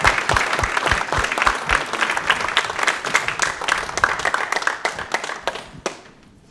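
Audience applauding, a dense patter of many hands clapping that thins out and dies away in the last second or so. Through the first two seconds a low, regular thump sounds about three times a second.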